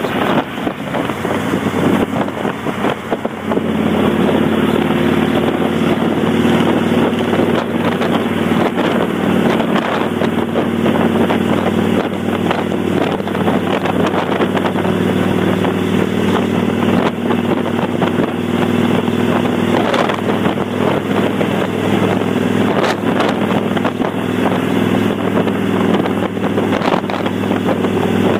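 Kawasaki Vulcan 800 V-twin engine running through Vance & Hines Straight Shots exhaust with the baffle plugs removed, with wind rushing over the microphone while riding. The engine gets louder about three to four seconds in, then holds a steady drone at cruising speed.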